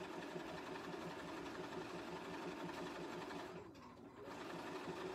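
Bernina sewing machine stitching a straight stitch at an even, rapid pace, the needle and mechanism beating in a steady rhythm. It eases off briefly about three-quarters of the way through, then picks up again.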